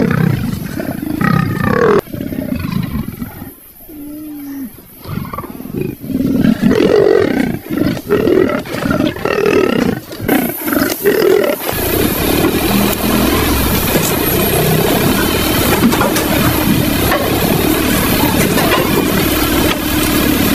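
Lions mobbing a leopard, big-cat growls in short broken bursts at first, then about halfway a dense continuous din of growling over a low rumble.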